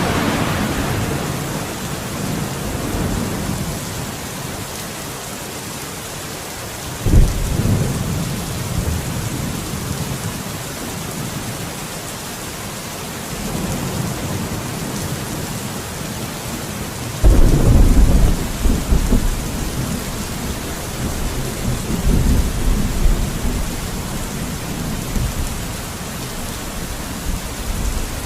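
Steady heavy rain with thunder. Sharp claps break about 7 seconds in and again about 17 seconds in, each rolling on as a low rumble; the second lasts longer.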